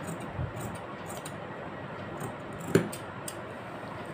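Scissors cutting through cotton fabric: a series of short snips and blade clicks, the sharpest a little under three seconds in.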